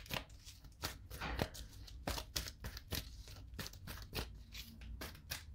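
Tarot cards being shuffled by hand: a soft, irregular run of card clicks and rustles, several a second, as the deck is mixed to draw clarification cards.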